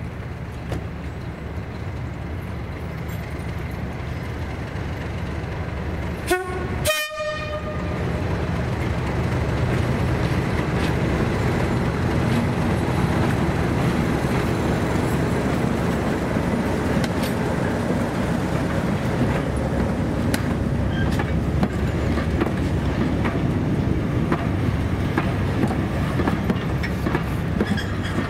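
Diesel locomotive with its engine running as a steady rumble that grows louder as it approaches. About six seconds in it sounds two short horn notes, the second higher, then runs past with the wheels clicking over the rail joints.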